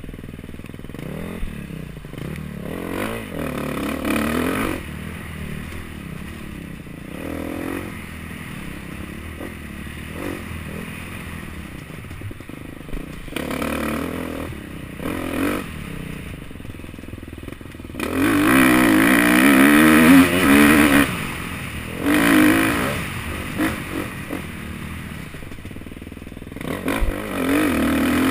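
Dirt bike engine revving up and down as the throttle is opened and shut in bursts, with rattling and scraping as the bike goes over rough ground; the longest, loudest burst of throttle comes about two-thirds of the way through.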